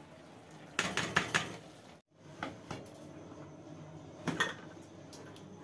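Kitchen clatter around an aluminium pressure cooker: a quick run of knocks and clinks about a second in, a few single clicks, then another short cluster of knocks a little past four seconds.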